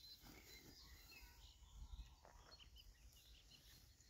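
Near silence, with faint scattered bird chirps in the background.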